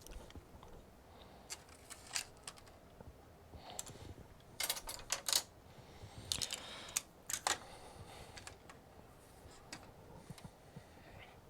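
Scattered light clicks and taps of small tools and parts being handled on a workbench, bunched most thickly between about four and eight seconds in.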